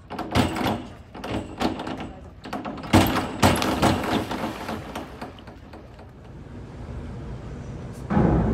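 A diver's splash into a swimming pool about three seconds in, amid a run of sharp knocks and thumps. A heavy thud comes near the end.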